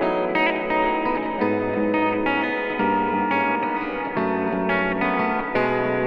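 Telecaster-style electric guitar playing a run of picked chords and notes that change about every half second to a second, through a Collider delay and reverb pedal into a miked amp.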